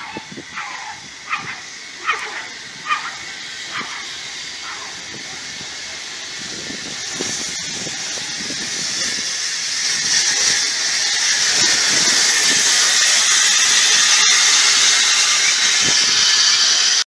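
Steam hissing from the saddle-tank steam locomotive Holly Bank No. 3, growing louder from about seven seconds in and then holding steady, with a few short sharp sounds in the first few seconds.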